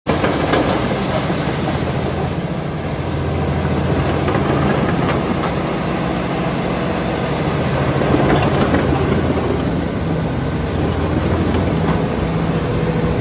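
Diesel engine of a Komatsu D85ESS-2 bulldozer running steadily, with a few metallic clanks and knocks over it.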